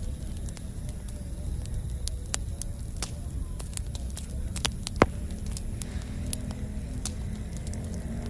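Campfire burning: wood crackling with scattered sharp pops over a low rumble of flame, and one much louder pop about halfway through.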